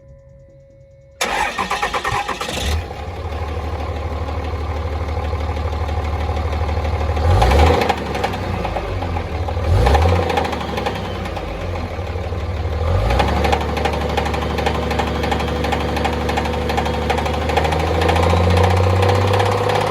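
Cummins diesel engine cranking and firing up about a second in, then running with a few short revs. The owner cannot tell whether the knock it makes comes from the flex plate, a connecting rod or the main bearings.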